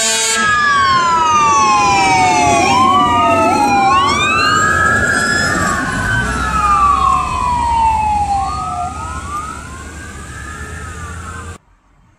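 Fire engine sirens wailing, two or more overlapping tones sliding up and down. They fade over the last few seconds and cut off abruptly near the end.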